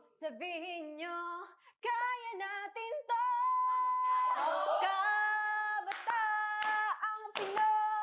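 Women's voices singing unaccompanied, several short sung phrases and then a long held note from about three seconds in, with hand claps near the end.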